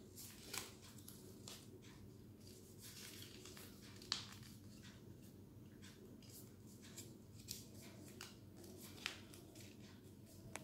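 Faint rustles and ticks of a folded paper strip being handled and pressed, with a few sharper ticks, the clearest about four seconds in, over a low steady room hum.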